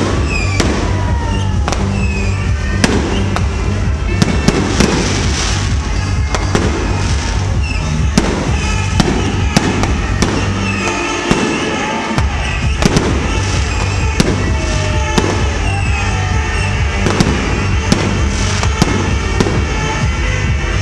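Aerial fireworks bursting in rapid succession: a constant run of sharp bangs and crackles. Under them is loud music with a heavy bass line, which cuts out for about a second near the middle.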